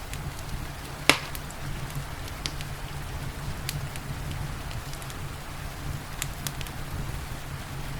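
Wood fire crackling in a fireplace, with scattered sharp pops and one loud pop about a second in, over a steady hiss of falling rain and a low rumble.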